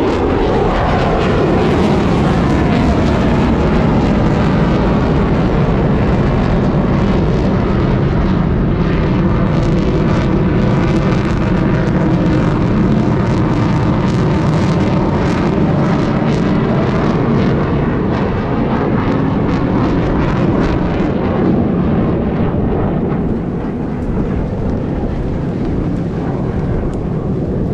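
F-35 Lightning II's single Pratt & Whitney F135 turbofan, loud and continuous as the jet flies its display. Its pitch sweeps downward as it passes right at the start, and the sound eases a little near the end.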